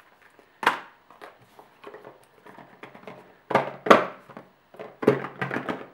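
Cardboard phone box and its paper inserts being handled: one knock about half a second in, then a run of knocks and rustles from about three and a half seconds on.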